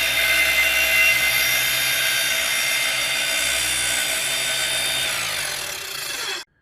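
Electric power tool motor running steadily at speed. Its pitch drops near the end as it winds down, and then the sound cuts off abruptly.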